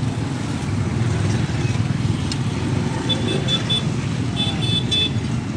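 Vehicle engine running with a steady low rumble. Two short runs of high beeps come through about three seconds in and again near the end.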